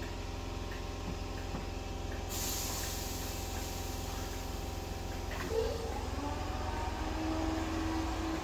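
Southern Class 313 electric multiple unit standing at the platform, its electrical equipment humming steadily. About six seconds in a new whine sets in and rises slightly as the train starts to move off.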